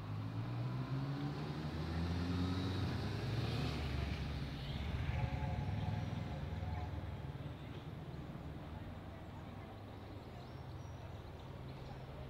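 An engine accelerating, its pitch rising over the first three seconds, loudest around the middle, then fading away.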